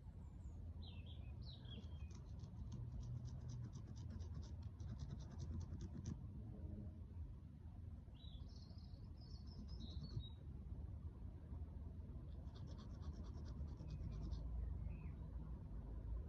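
Songbirds calling: short high chirps, and a rapid dry trill of evenly spaced notes lasting about four seconds, with a second shorter trill near the end. A low steady rumble runs underneath.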